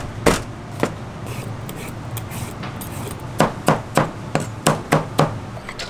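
Cleaver chopping pumpkin and striking a plastic cutting board: two knocks near the start, then a quick run of about seven chops, roughly three a second, in the second half.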